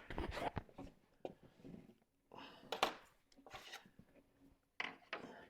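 Scattered light knocks, clicks and short scrapes from handling wooden workpieces and tools at the bench.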